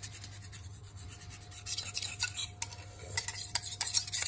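Gloved fingers rubbing and scraping around the top of a cylinder bore in a Rootes 1600 engine's cast-iron block, over the ring ridge worn into the bore wall. The rubbing picks up after a second or so, with a few sharp clicks in the second half.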